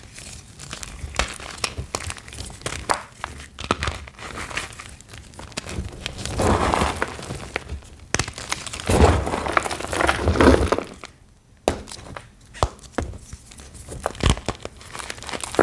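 Reformed gym chalk blocks being crushed and crumbled by hand: a dense run of crackly crunches and small snaps. The crunching is loudest in two stretches near the middle, pauses briefly, then goes on more lightly.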